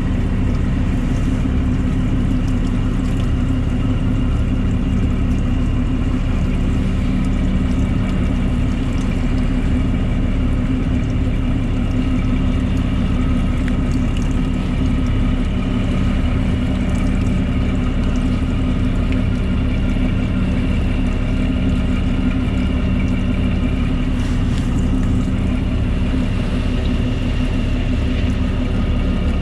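Fishing boat's engine running steadily, a constant low drone with several steady higher tones over it.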